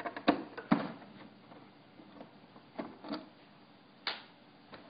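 Scattered light clicks and knocks, several in the first second and a few more later, from a screwdriver and hands working the screws at the back of a Uniwell SX8505 cash register's plastic case.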